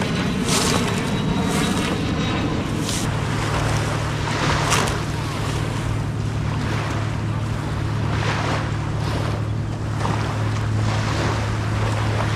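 Motorboat on the river: a steady low engine hum sets in about three seconds in, under gusts of wind on the microphone and the wash of water.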